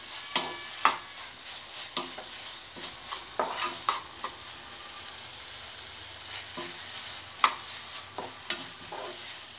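A wooden spatula stirring and scraping mashed elephant apple pickle around a non-stick frying pan, with irregular scrapes and taps, over a steady sizzle of frying.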